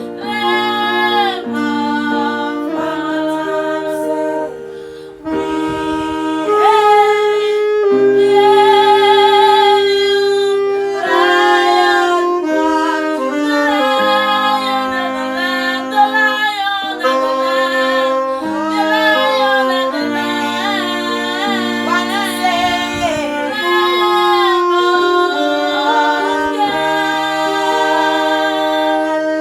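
Worship song sung with instrumental backing: a melody line with vibrato over sustained chords.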